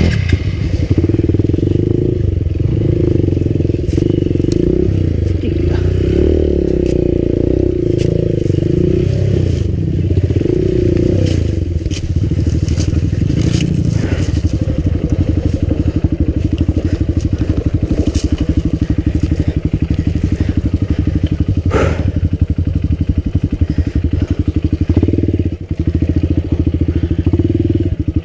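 Enduro motorcycle engine running at low speed on a rough trail. The revs rise and fall for the first ten seconds or so, then steady out. Scattered clicks and knocks of stones under the tyres run throughout, with one sharp knock a little past the middle.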